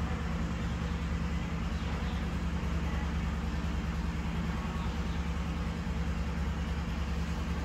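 Cats purring while the kittens nurse: a steady, low, unbroken purr.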